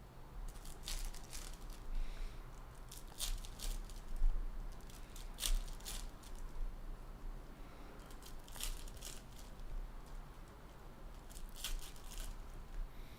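Hockey card packs being torn open by hand: foil wrappers tearing and crinkling in irregular short crackles, with cards being handled.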